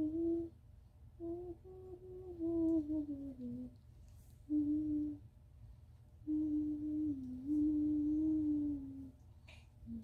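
A young girl humming a tune in several short phrases. One phrase slides downward in pitch and the others hold mostly on one note.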